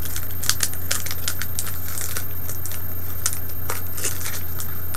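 Foil wrapper of a Pokémon trading-card booster pack crinkling and crackling as it is opened by hand. The crackles come thick and fast, then thin out after about two and a half seconds, over a steady low hum.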